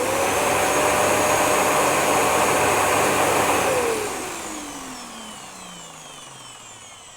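Dyson DC07 upright vacuum cleaner motor running at full speed with a steady whine and rush of air, just after being switched on. About three and a half seconds in it is switched off and winds down, its whine falling steadily in pitch as the sound fades.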